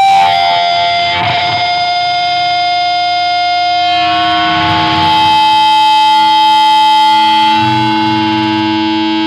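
Distorted electric guitar feedback: sustained, ringing tones held without drums, shifting in pitch about a second in and again about four seconds in.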